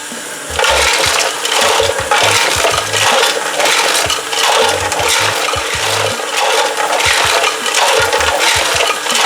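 Crushed granite rattling and scraping around inside a small engine fuel tank as it is shaken, scouring out old fuel varnish.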